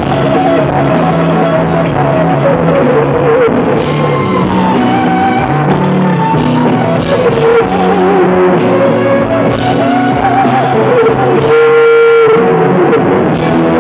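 Live rock band playing, led by an electric guitar solo on a Gibson Firebird through Marshall amplifiers: bent, sustained lead notes over drums and bass. Near the end the band drops away under one long held guitar note.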